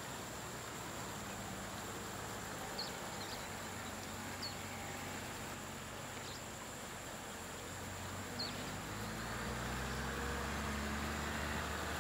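A shallow river rushing over rocks in a steady wash, with a few short high bird chirps. A low steady hum comes in about three-quarters of the way through.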